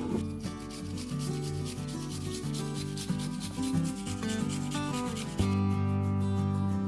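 Garlic cloves rasped on a small stainless-steel hand grater in quick back-and-forth strokes, stopping about five seconds in, over background music.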